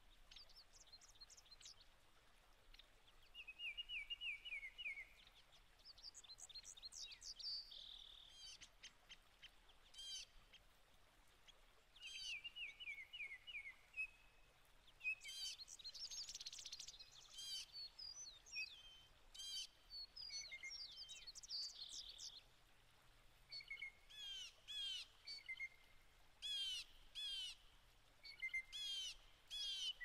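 Small songbirds calling and singing: many short high chirps throughout, with a few quick trills that drop in pitch.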